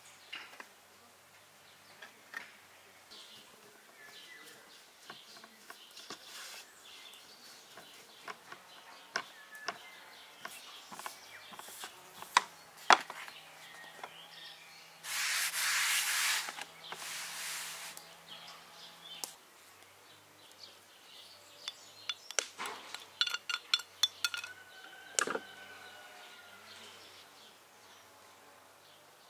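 Hand food-preparation sounds at a wooden table: scattered clinks and taps of spoons and glass bowls and light rubbing on the board, with two sharper knocks just before a rustling burst of about three seconds midway. A bird chirps briefly near the end.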